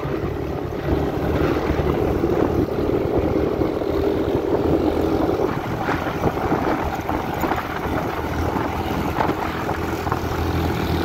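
Motorcycle engine running steadily as it is ridden, heard from the rider's seat over road and wind noise; its hum weakens about halfway through.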